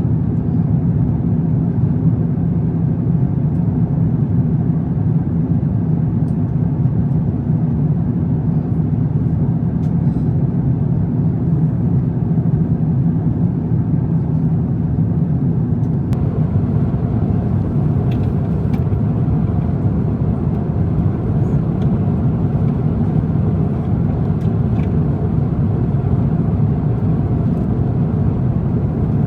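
Steady cabin roar inside an Airbus A350-900 in flight: engine and airflow noise, deep and unchanging, with a few faint clicks in the second half.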